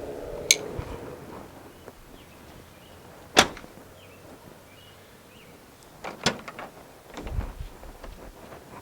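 Dodge Ram pickup door being worked open and shut, with a few sharp clicks and a low thud near the end. There is no hinge squeak: the door check roller has just been fitted with a plastic C-notch shim and oiled.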